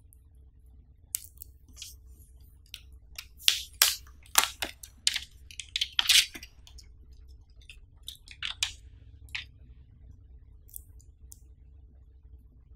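Smartphone's clear plastic protective film being peeled off and handled, crinkling in a string of sharp crackles, loudest from about three to six and a half seconds in, with a few more near nine seconds.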